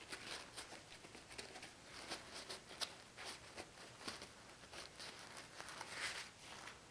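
A paper towel dabbed and patted against a latex prop's skin to blot off citric acid solution: faint, irregular rustles and soft pats, a few a second.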